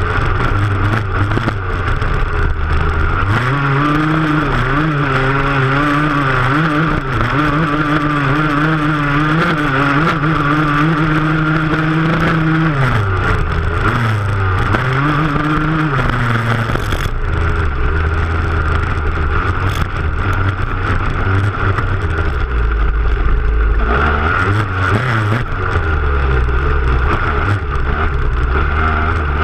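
Dirt bike engine pulling hard over a rough stubble field, heard close from the rear fender. The revs climb and hold high, dip twice around the middle, then settle to a lower, rougher note, with jolts from the bumps throughout.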